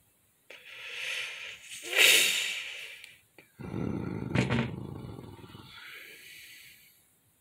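A child's voice imitating animal roars for a pretend fight: first a breathy, hissing roar that swells and fades, then after a short pause a lower, growling roar that trails off.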